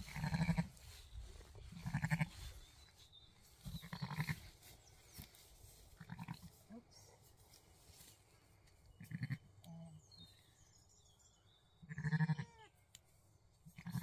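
Zwartbles ewe giving short, low bleats every two to three seconds, six in all, a mother calling to her newborn lambs as they are lifted from beside her.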